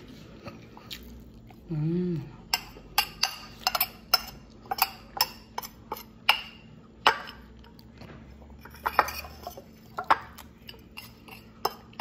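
Metal spoon clinking and scraping against a glass plate, many sharp clinks from about two and a half seconds on as the last of the food is gathered up. A brief hum from a voice about two seconds in.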